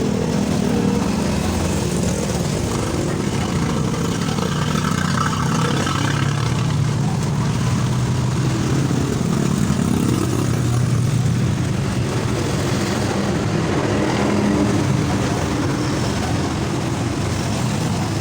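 Motor vehicle engines running steadily, their pitch wavering up and down over a few seconds without a break.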